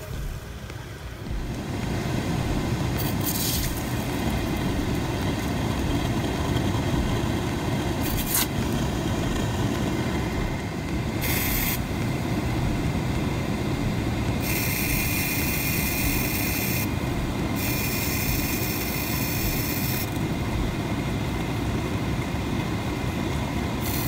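A Mazda 2's HVAC blower fan runs steadily at its highest speed while aerosol evaporator cleaner is sprayed into it in bursts, so the fan pushes the foam through the evaporator fins. The spray hisses briefly three times, then twice for two to three seconds each in the second half.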